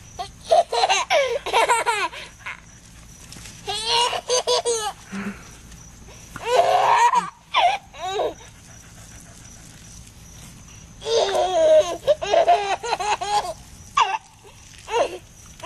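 Person laughing in about five separate high-pitched fits, each a second or two long.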